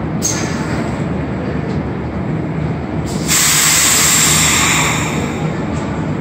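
Montreal Metro Azur train, rubber-tyred, rolling slowly along the platform and coming to a stop, with a steady low rumble. About three seconds in, a loud hiss of air starts and fades away over about two seconds.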